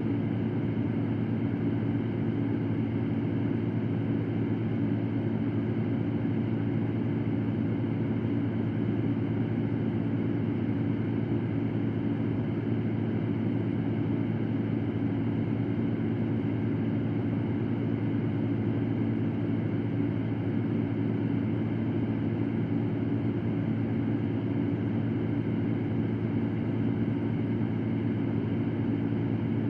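Electric fan running steadily: a constant whirring rush with a low hum, unchanging throughout.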